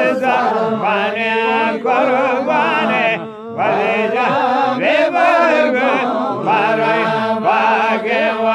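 Men's voices singing a Balochi Zikri chogan devotional chant, the pitch wavering in long sung lines over a steady low held tone, with a short break about three seconds in.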